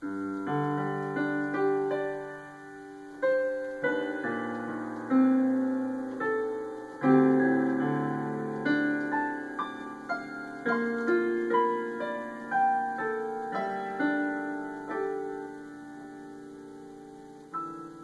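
Sampled piano from a Raspberry Pi 2 running FluidSynth with a piano soundfont, played live from a USB MIDI keyboard and heard through small computer speakers. Slow chords with a melody on top are struck every second or two and left to ring. A last chord near the end fades away.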